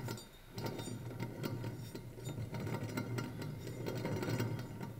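Bad wheel bearing grinding as it turns: a dense, irregular run of fine clicks over a low steady hum. Its inner casings have come apart.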